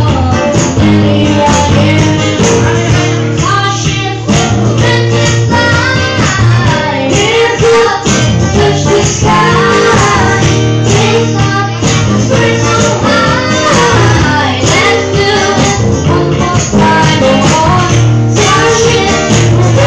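A live band playing through a PA: amplified singing over acoustic guitar and sustained low notes.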